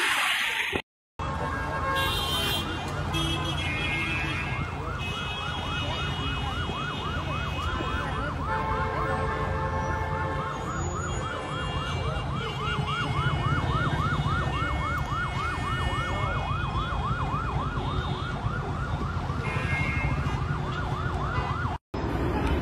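Emergency vehicle siren in a fast yelp, its pitch rising and falling about three times a second, over a steady low rumble. It comes in after a short silence about a second in and cuts off suddenly near the end.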